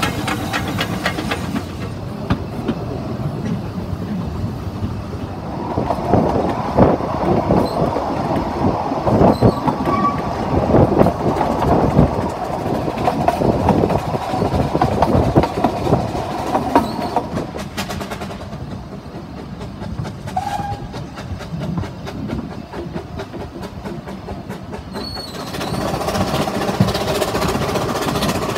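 Narrow-gauge steam train heard from a carriage while under way: the wheels clatter over the rail joints in quick, irregular clicks and knocks over a steady rumble. The clatter eases for a few seconds about two thirds of the way through, then gives way to a steady rushing run.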